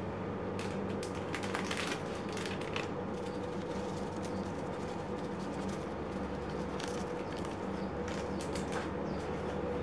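Faint light taps and rustles of a small seasoning packet being shaken over fish in a pan, over a steady low hum.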